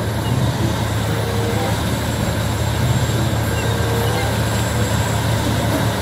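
Large Komatsu crawler bulldozer's diesel engine running steadily with a strong low hum as the machine pushes a bladeful of broken rock.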